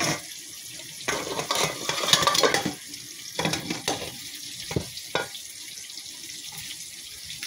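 Cooking oil sizzling steadily in a wok as fish fry, with a louder stretch of clattering from about a second in and a few sharp clicks a little later.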